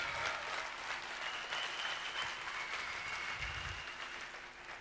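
Large audience applauding, the applause dying down toward the end.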